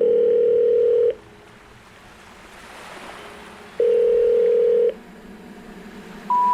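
Telephone-style tones in outro music: two held, dial-tone-like notes of about a second each, with soft hiss between them, then near the end three short notes stepping upward, like the phone network's 'number not in service' intercept tone.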